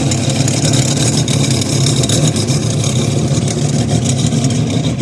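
Twin 250-horsepower engines of a 24-foot Skater catamaran speedboat idling with a steady low rumble.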